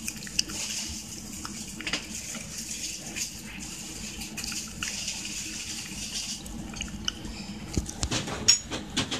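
A cat licking purée out of a bowl: quick wet licking and smacking with small clicks of tongue on the bowl. A few sharper knocks come near the end.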